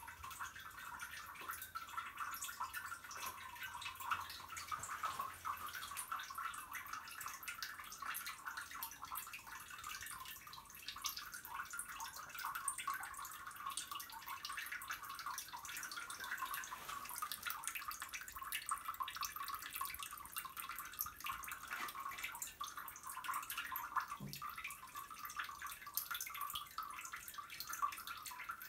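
A steady thin trickle of water with faint, irregular dripping, even in level throughout.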